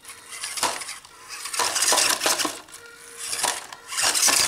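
Micro RC crawler truck clattering and scrabbling over a hill of smooth river pebbles in several bursts of rattling, clinking noise, as it struggles for grip and drives uncontrollably on the steep stones.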